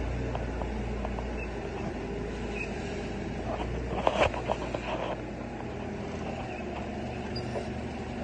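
Forklift running with a steady low hum. About four seconds in there is a short burst of clattering knocks.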